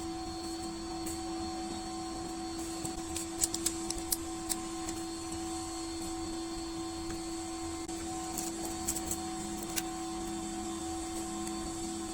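A steady machine-like hum runs under light clicks and taps from small plastic parts being handled. The clicks come in a cluster a few seconds in and another about two-thirds of the way through, consistent with fitting the conductive sheet onto an anti-snore wristband.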